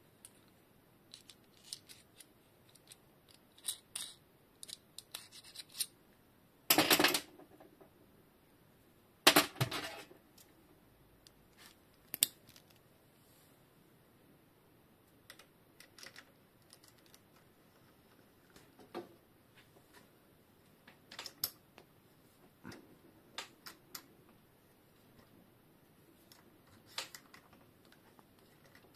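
Small metal RockShox Judy fork parts and hand tools being handled: scattered light clicks and taps, with two louder clattering bursts about seven and nine and a half seconds in.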